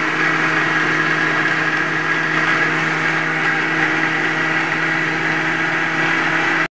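Electric mixer grinder with a stainless-steel jar running steadily at full speed, grinding a wet paste: a loud, constant motor whine that stops abruptly at the very end.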